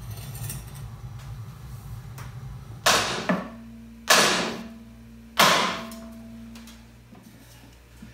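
Three hard hammering blows, a little over a second apart, driving on the left front fork leg/stanchion of a 1961 Norton Manxman; each leaves a metallic ring that dies away. The stanchion is very tight, possibly bent.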